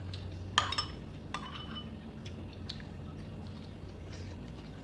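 Cutlery clinking against dishes: one sharp clink about half a second in, then a few lighter taps over the next two seconds.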